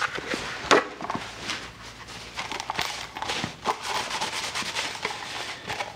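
Irregular clicks, knocks and rustling of a person moving about and handling parts in a workshop.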